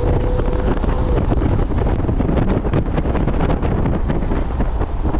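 Wind buffeting a microphone mounted outside a moving Jeep Wrangler Rubicon, with steady road and tyre noise underneath and frequent small crackles. A steady whine fades out about a second in.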